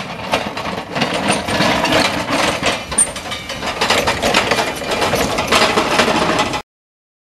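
Forklift truck running while its Evans & Reid steel snow plough blade pushes and scrapes through snow, with a busy clatter of knocks and rattles. The sound cuts off abruptly near the end.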